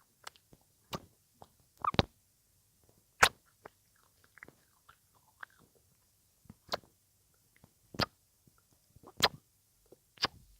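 ASMR mouth sounds close to the microphone: scattered wet clicks and smacks of the lips and tongue, about a dozen, each separated by short silences.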